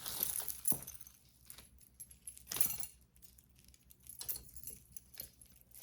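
Metal costume-jewelry chains and pieces clinking and jingling as they are handled, in several short bursts.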